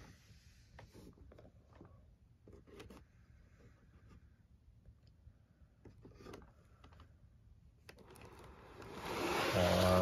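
Handling noise: faint scattered rubbing and scraping sounds, then louder rustling over the last two seconds as the camera is moved.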